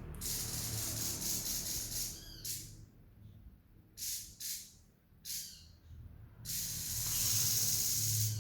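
Grey-headed babbler singing fast, dry, sewing-machine-like rattling chatters. A long burst comes at the start, a few short separate notes follow in the middle, and another long, loud burst comes near the end, over a faint low hum.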